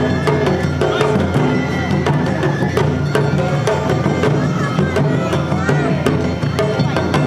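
An Awa Odori narimono band playing: ōdaiko and shime-daiko drums and clanging kane hand bells beat out a steady stream of strikes under held shinobue bamboo-flute notes.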